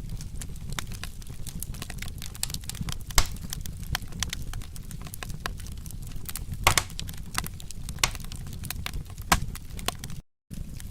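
Wood fire crackling and popping over a low steady rumble of flames, with a few sharper pops. The sound cuts out for a moment near the end.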